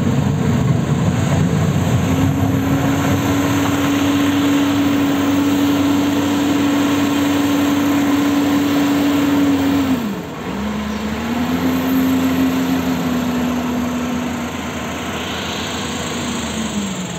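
LiuGong wheel loader's diesel engine running hard as the machine works a pile, holding a steady high drone. About ten seconds in the revs drop sharply, pick up again, then fall away near the end.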